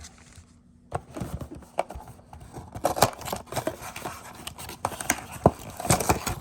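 A cardboard trading-card blaster box being opened and its foil card packs handled: irregular taps, knocks and rustling of cardboard and wrappers, starting about a second in.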